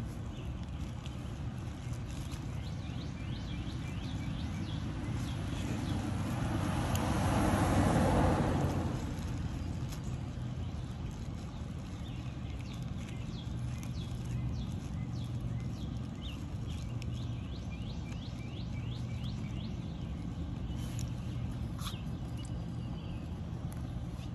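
Outdoor background with small birds chirping throughout over a steady hiss, and a passing car that swells and fades about seven to nine seconds in.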